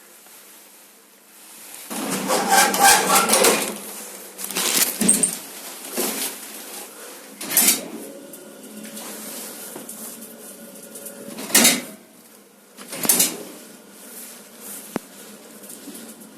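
Metal lift doors clattering and rattling as they are opened and shut, then several separate sharp metallic bangs spread over the next ten seconds. A faint steady hum runs between the bangs.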